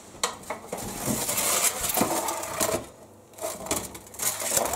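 Metal baking tray scraping and clanking as it is slid across the brick floor of a Russian stove. There are two spells of scraping with sharp metallic clicks, with a short lull just before 3 seconds in.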